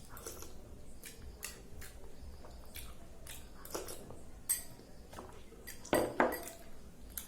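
Utensils clinking and tapping on a plate while eating: a scatter of short clicks, with two louder knocks about six seconds in.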